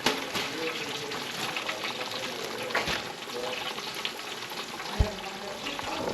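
White bass fillets in fish-fry coating frying in hot grease: a steady sizzle with fine crackling. A couple of sharp knocks about three and five seconds in.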